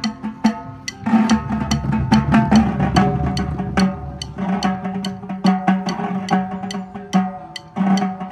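Marching drumline playing: snare drums and multi-tom tenor drums struck in fast, tight rhythms, with the tenors' pitched drum tones ringing under the sharp stick strokes. Bass drums add a low rumble for a couple of seconds, starting about a second in.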